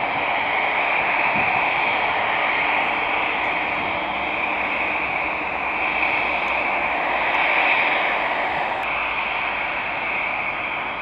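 Steady rushing hiss of airport apron noise during aircraft deicing, from the airliner and the deicing trucks spraying it. The sound is strongest in the upper-middle range, with no beat, and shifts a little about nine seconds in.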